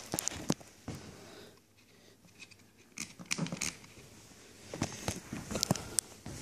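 Handling noise from a full-face motorcycle helmet being turned over in the hands: short clicks, taps and rustles against its shell and visor, in three flurries, at the start, about three seconds in and near the end.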